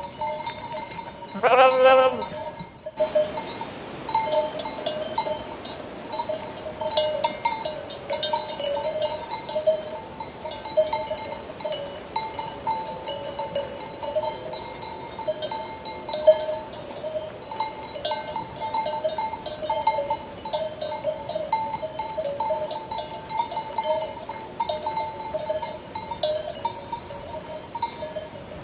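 Sheep bells clanking continuously in an uneven, jangling rhythm, with one sheep bleating briefly about two seconds in.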